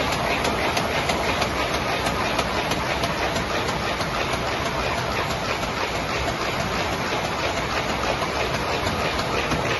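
MBO paper finishing line running, the printed paper web travelling at speed over its rollers: a steady, even machine noise with a faint regular ticking.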